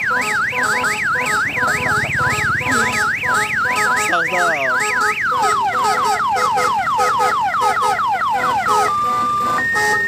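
Odong-odong tourist train's electronic multi-tone horn sounding a fast up-and-down warbling siren, about four sweeps a second. A little after five seconds in it switches to a run of quick falling 'tweet-tweet' chirps, and near the end to a two-tone alternating beep. A looping electronic tune plays underneath.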